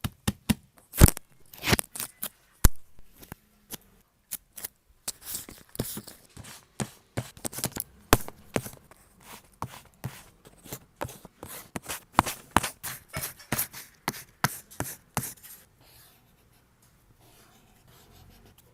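Scissors snipping paper in quick, irregular cuts with paper handled between them; the snipping thins out and stops about three seconds before the end.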